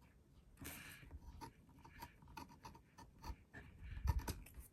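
Gyro-Cut swivel-blade craft knife cutting through paper, a faint, irregular scratching with small clicks as the blade is guided around a shape.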